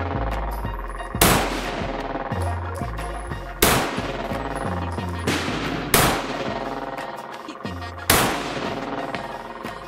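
Four handgun shots fired slowly, one about every two and a half seconds, each a sharp crack with a short ring after it, over background music with a bass line.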